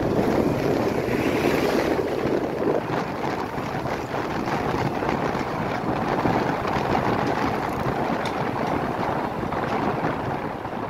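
Wind rushing over the microphone of a moving vehicle, a steady rough noise with the low sound of the ride underneath.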